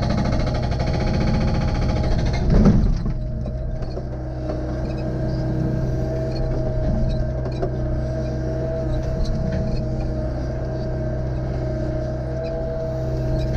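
Excavator diesel engine running steadily while splitting firewood, with a louder hissing strain over the first three seconds that ends in a heavy crack about two and a half seconds in.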